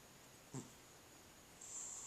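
Sleeping cat snoring faintly: a brief snort about half a second in, then a high, hissing breath starting near the end.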